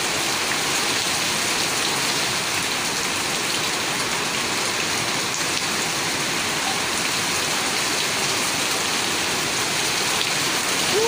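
Steady rain falling on a wet concrete yard, an even hiss of drops splashing on the ground.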